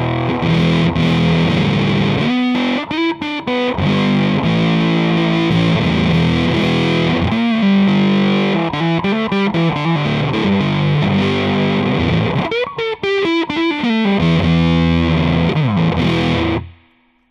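Electric guitar, a Stratocaster on its bridge humbucker, played through an Arcane Analog clone of the Earth Sound Research Graphic Fuzz pedal into a Fender Hot Rod Deluxe amp: heavily fuzzed sustained chords and riffs, with quick runs of notes about three seconds in and again near the end. The playing cuts off suddenly just before the end.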